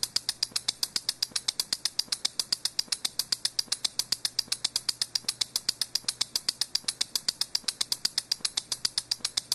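A rapid, even train of high-pitched clicks or chirps, about eight a second, going on steadily without a break.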